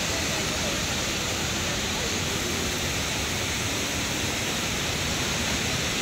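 Steady rush of the Kravice waterfalls, an even wash of falling water at a constant level, with faint distant voices now and then.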